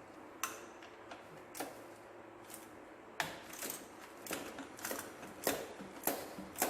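Irregular sharp metallic clicks and clinks of hand tools working on metal. A few single clicks at first, then coming faster and more irregularly after about three seconds.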